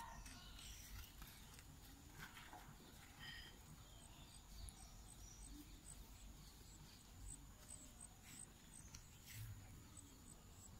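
Near silence: faint rural outdoor ambience with a thin steady high tone and a few faint bird chirps.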